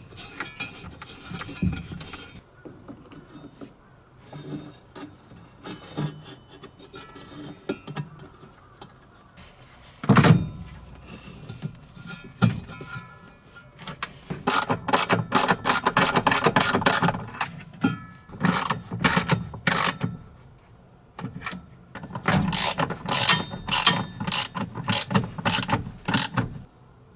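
Hand-tool work on a washing machine's belt drive: scattered clicks and knocks, one heavy knock about ten seconds in, then several runs of rapid ratchet-like clicking, typical of a ratchet wrench turning bolts.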